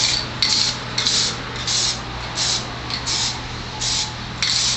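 Aerosol spray-paint can sprayed in short squirts, about eight quick hisses, each a fraction of a second, as a coat of paint goes onto truck window trim.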